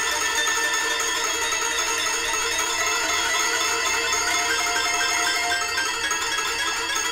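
Toy piano playing a dense cluster of bright, ringing metallic notes, with a short figure of repeated high notes a little past the middle.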